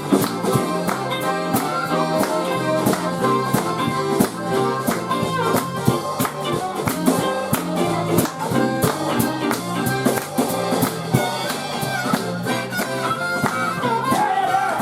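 Live band playing an instrumental passage with accordion, guitar, bass and a steady drum beat. A harmonica plays bending notes near the end.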